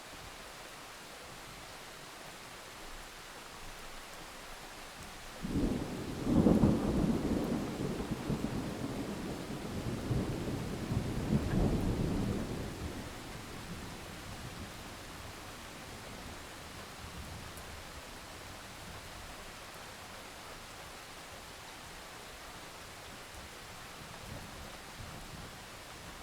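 Steady rain with a thunderclap about five seconds in: a sudden crack that becomes a deep rolling rumble, swelling again a few seconds later, then dying away into the rain.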